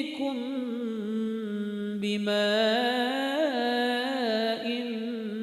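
A single voice chanting Quran recitation in a slow melodic style, drawing out 'ya'tīkum' and then 'bimā'' in long held notes that waver and glide in pitch, with a short break for breath about two seconds in.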